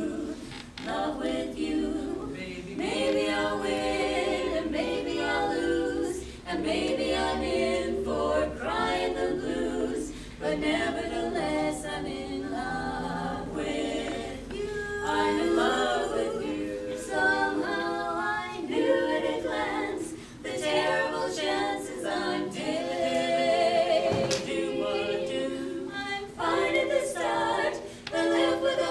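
Women's barbershop quartet singing a cappella in four-part close harmony, in phrases broken by short breaths every few seconds.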